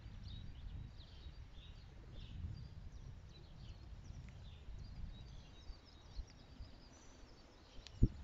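Low outdoor background rumble with small birds chirping faintly.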